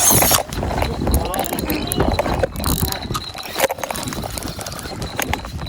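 Indistinct talking under a low rumbling noise, with many scattered clicks and knocks.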